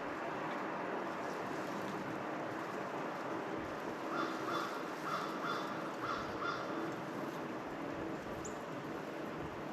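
A crow cawing, a quick run of about six caws about halfway through, over a steady outdoor hiss.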